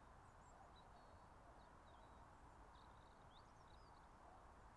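Near silence: a faint steady hiss, with several faint, high bird chirps during the first few seconds.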